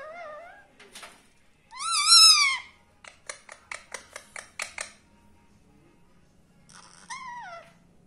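Indian ringneck parakeets squawking: a short wavering call at the start, a loud screech rising and falling about two seconds in, then a quick run of about a dozen short clicks, and another falling squawk near the end.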